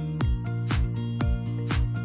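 Background music with a steady beat of about two beats a second over held chords.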